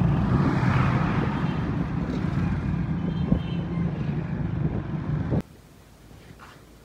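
Street traffic: motorcycle and car engines running with a steady low hum. It cuts off abruptly about five seconds in, leaving quiet room tone.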